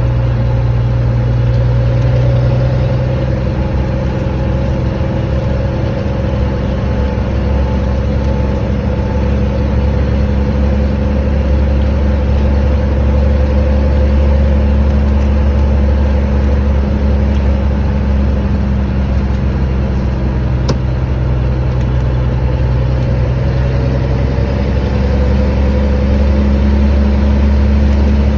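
Vehicle engine with a loud exhaust, running with a steady deep rumble whose low pitch shifts slightly now and then.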